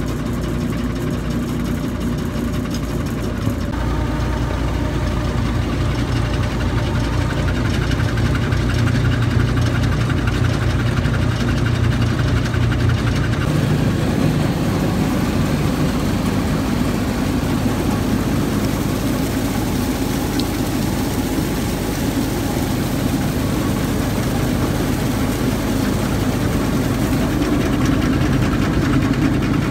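Engine and belt-driven machinery of a tube-well boring rig running steadily. The tone shifts twice, about four seconds in and again about thirteen seconds in.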